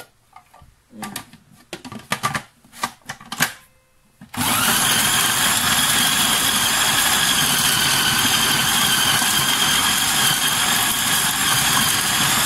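Plastic clicks and knocks as a food processor's lid is fitted, then about four seconds in the food processor's motor starts suddenly and runs steadily with a high whine, chopping a bowl of shallots, garlic, galangal and lemongrass.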